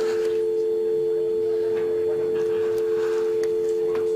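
Landline telephone handset giving a continuous dial tone after the call has ended: two steady pure tones sounding together, unbroken.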